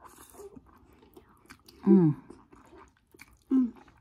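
A person slurping and chewing instant noodles close to the microphone, with small wet mouth clicks throughout. Twice, about two seconds in and near the end, she gives a short voiced hum that falls in pitch.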